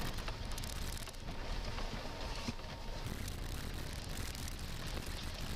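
Steady low rumble of a Mahindra XUV500 driving over a rough gravel road, heard from inside the cabin, with frequent small clicks and rattles from stones and loose fittings.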